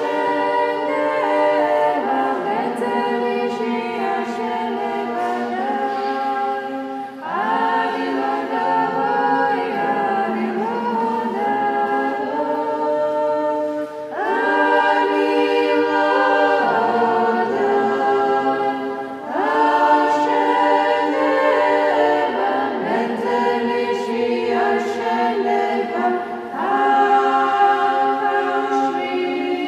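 Nuns' choir singing Georgian Orthodox chant a cappella, several voices in harmony, in long sustained phrases broken by short pauses for breath.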